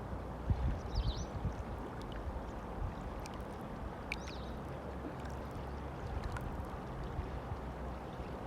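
River water flowing steadily, with a few low thumps in the first second or so and two short high chirps, about one and four seconds in.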